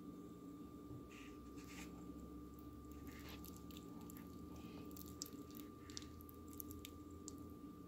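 Spoon working through cooked potato pasta clumps in a slotted colander: scattered soft, sticky squishes and small clicks, over a steady faint hum.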